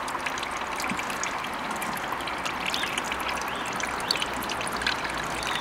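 Liquid digestate running out of a household anaerobic digester's outlet, a steady trickling and splashing carrying lumpy bits. It is pushed out by fresh feed going in at the top, as in a continuous process.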